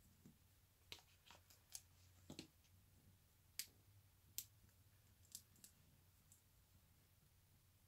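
Faint scattered clicks and taps of fingers handling small cardstock pieces and foam adhesive dots on a craft mat, the two sharpest about halfway through.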